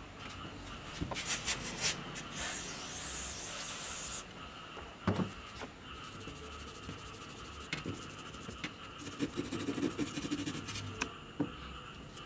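A stiff brush scrubbing a greasy gear and bearing housing from an old circular saw, with scratchy strokes and many small clicks, and one sharp knock about five seconds in.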